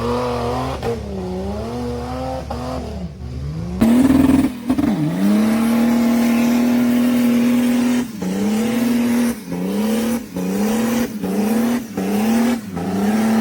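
Off-road truck engine revving under load. It wavers at first, jumps to a loud, steady high rev about four seconds in, then surges and drops off again and again as the throttle is worked.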